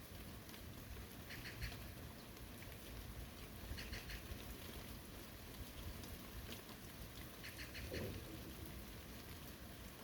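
Steady rain falling, with three short bursts of rapid chattering calls from a small animal or bird about a second, four seconds and seven and a half seconds in.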